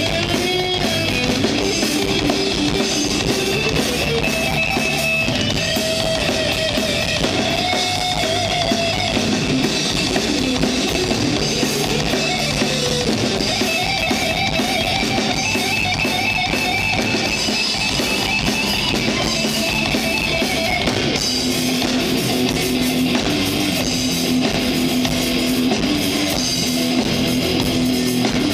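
Rock band playing live through a PA: distorted electric guitars over a drum kit, with a guitar lead line above the heavy rhythm, loud and without a break.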